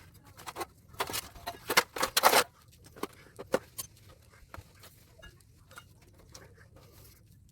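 Scattered clicks and knocks from hands and tools working on scrap. There is a cluster of louder knocks in the first two or three seconds, then light, sparse clicks.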